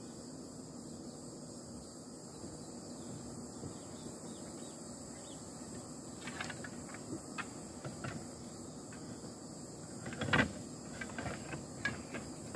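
The wooden frame and slatted roll-up wooden top of a folding camping table click and knock as they are handled and set up. A few light clicks come about six to eight seconds in, one louder knock comes about ten seconds in, and quick wooden clacks follow as the rolled top is lifted. A steady high hiss runs underneath.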